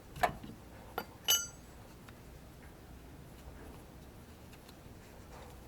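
Three sharp knocks about a second apart in the first second and a half. The last rings briefly with a clear metallic tone, like a metal tool or part clinking against something hard.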